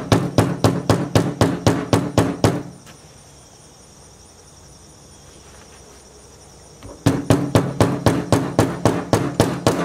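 Hammer tapping a no-sew suspender button onto its tack through the denim waistband, rapid blows about four a second. The blows stop about two and a half seconds in and start again about seven seconds in.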